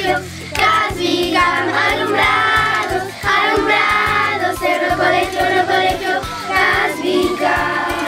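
A group of girls singing a camp song together.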